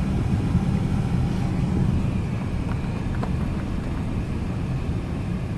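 Steady low rumble inside a car's cabin as it drives along a gravel road: engine and tyres on gravel, with a few faint ticks.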